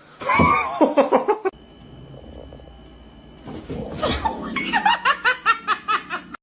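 Human laughter: a short vocal burst that cuts off suddenly about a second and a half in, then after a quieter stretch a run of rapid, repeated laughs, several a second, growing louder toward the end.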